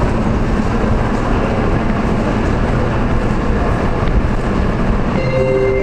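Steady, loud rumble of a subway train running through the underground station. About five seconds in, a marimba-like chime of held notes begins over it.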